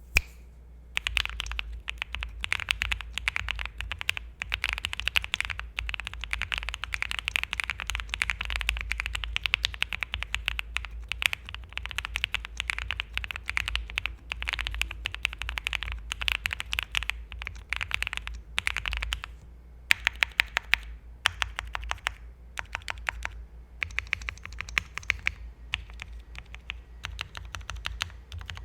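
Typing sound test on a KBDFans Odin V2 gasket-mount 96% keyboard with a polycarbonate plate, lubed Gateron Oil King linear switches and double-shot JTK Night Sakura keycaps: fast runs of key presses, a few separate louder strokes around the twenty-second mark, then more bursts of typing.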